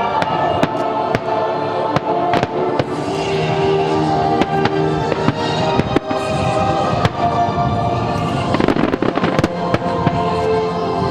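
Aerial fireworks bursting with sharp bangs throughout, over a musical soundtrack, and a dense burst of rapid crackling about two-thirds of the way in.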